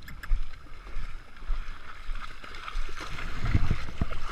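Shallow lake water sloshing and splashing around someone wading through it, with a low rumble underneath. The splashing gets louder and busier near the end.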